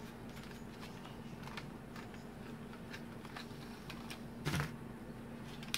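Light clicks and taps of a screwdriver and small parts being handled on the circuit board of a Kenwood Chef mixer's motor assembly, with one louder knock about four and a half seconds in, over a faint steady hum.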